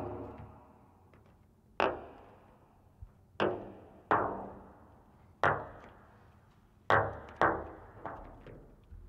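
A series of heavy knocks at uneven intervals, about six loud ones and a few softer ones near the end, each ringing out for about a second.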